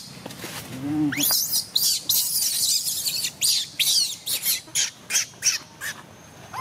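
Newborn baby macaque giving a rapid string of shrill, high-pitched squeals and cries, some gliding up and down, with one lower call about a second in. These are distress cries as the baby is pushed about on the ground.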